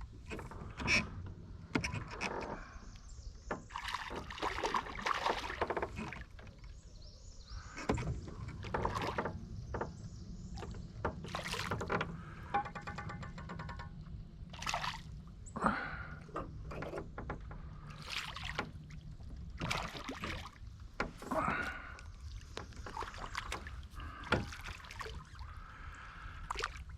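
Scattered knocks and rustling from gear being handled in a small fishing boat, over a steady low wind rumble.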